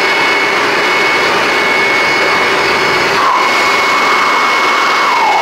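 Steady, loud rushing of air from a motorized blower, with a constant high-pitched whine on top. From about three seconds in, a man's wavering, wordless howl joins it.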